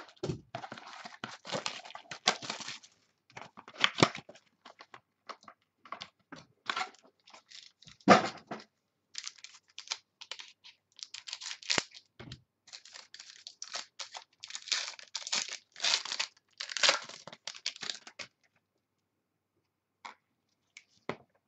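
Trading card packs being torn open and their wrappers crinkled, with cards sliding and flicking against each other in the hands. The irregular crackling rustles stop about three seconds before the end.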